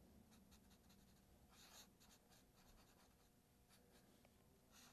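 Faint scratching of a felt-tip marker drawing short strokes on paper, the clearest stroke about a second and a half in and a few shorter ones near the end.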